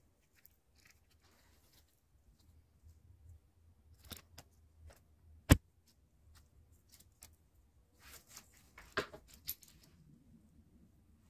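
Small hand tools clicking and snipping while a lemon bonsai is wired: scattered light clicks, one sharp snap about five and a half seconds in, and a quick run of clicks near nine seconds.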